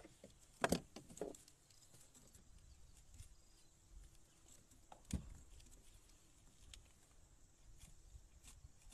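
Faint handling sounds of a kingfish's deeply swallowed hook being worked at on a kayak: a few sharp clicks and knocks, a cluster about a second in and a single thump about five seconds in.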